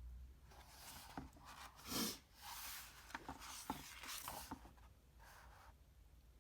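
Faint paper rustling from a picture book's pages being handled and turned, a few soft rustles with small clicks, the loudest about two seconds in.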